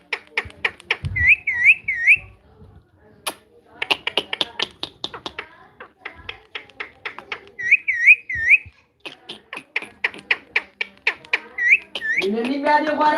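Pet parrot clicking and whistling: fast runs of sharp clicks, broken twice by three quick swooping whistles in a row.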